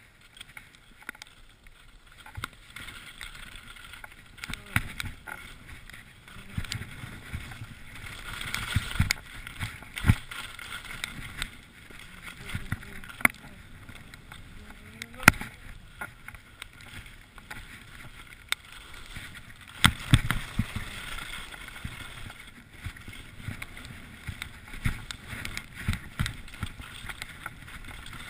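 Skis scraping and hissing over snow on a mogul run, with frequent sharp knocks and clatters as the skis strike the bumps and the poles plant. Picked up by a camera worn by the skier.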